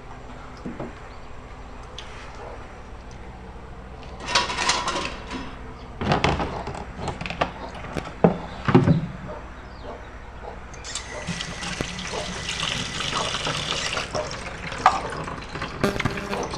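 Kitchen clatter of pots and utensils, a few sharp knocks, then water running steadily for about three seconds, as from a tap filling a pot or sink.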